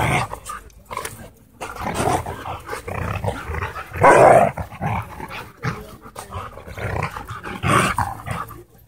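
Huskies growling as they wrestle open-mouthed, in irregular bursts, the loudest about four seconds in and another near the end.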